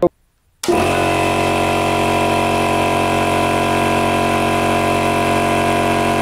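ECO 251-series oil-lubricated piston air compressor switched on at its pressure switch. It starts at once about half a second in, without stalling, and runs steadily until it is switched off near the end, when it cuts off abruptly. The compressor has a new start capacitor and fresh oil.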